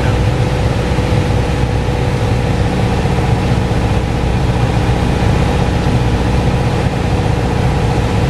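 Steady drone of a Piper Archer PA-28-181's four-cylinder Lycoming O-360 engine and propeller, heard from inside the cabin in flight, with no change in power.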